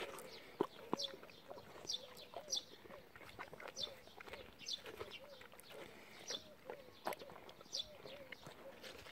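Basset hound chewing watermelon, with irregular wet crunches and clicks of its jaws on the rind. Birds chirp throughout, short falling chirps about once a second, over a soft repeated low call.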